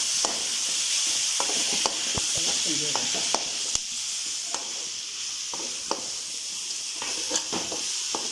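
Chopped vegetables frying in hot oil in a pan, sizzling steadily, while a spoon stirs them with irregular clicks and scrapes against the pan.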